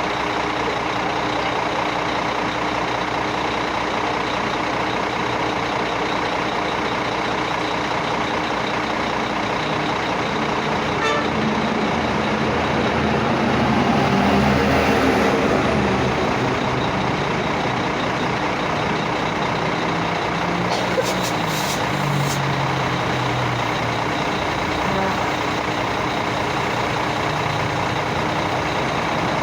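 Heavy vehicle engines running steadily in road noise. One grows louder and fades away about halfway through.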